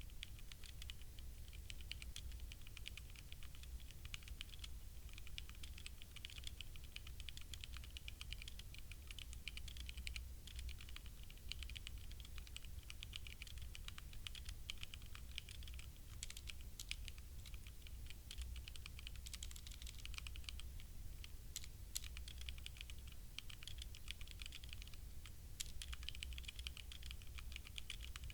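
Continuous typing on a HyperX Alloy Origins Core mechanical keyboard with HyperX Red linear switches: a steady fast stream of light key clacks, with a few sharper, louder strikes here and there.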